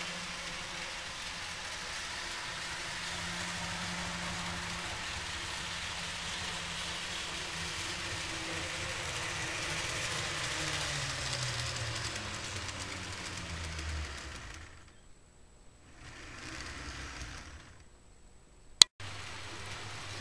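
A small electric motor whirring over a steady hiss, its pitch falling as it slows about eleven to fourteen seconds in before dropping out. A single sharp click comes near the end.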